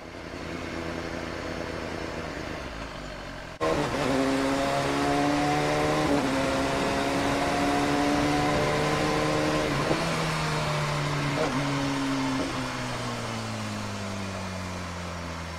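BMW S1000RR's inline-four engine running on the move. After a low steady hum and an abrupt cut about three and a half seconds in, the engine note holds steady and rises slightly, then falls away over the last few seconds.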